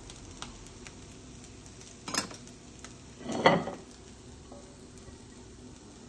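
A metal spoon scraping and clicking against a plastic container of cauliflower fried rice, with a sharp click about two seconds in and a louder kitchenware clatter about a second later, over a faint steady sizzle from the frying pan on the stove.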